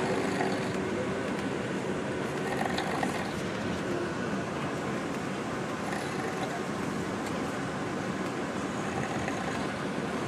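Steady running noise heard inside a moving bus.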